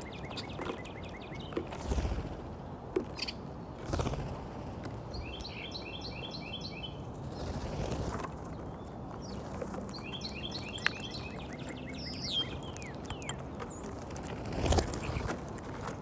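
A songbird singing a rapid, even trill of repeated high notes, twice, with scattered sharp taps of birds at the peanut pile. Near the end there is a louder flurry of wingbeats and scuffling as several European starlings land to feed.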